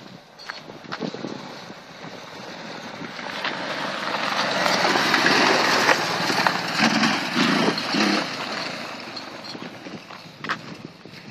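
Quad bike engine passing by, growing louder to a peak about halfway through and then fading away.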